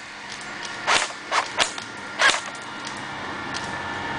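Airsoft guns firing four sharp single shots, irregularly spaced over about a second and a half, then stopping.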